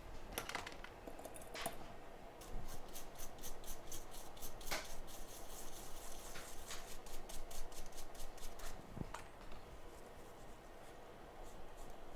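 Quick, rhythmic scrubbing strokes on a circuit board as its solder pads are cleaned with contact cleaner, after a couple of light clicks.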